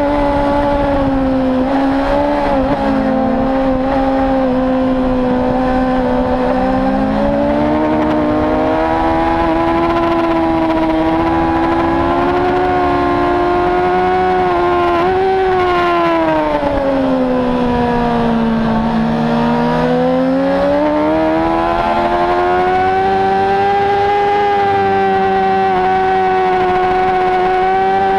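Onboard sound of a race motorcycle's engine running hard at high revs over a rush of wind noise. Its pitch holds high with small dips at gear changes, sinks for a few seconds about two-thirds of the way through as the bike slows, then climbs steadily back up under acceleration.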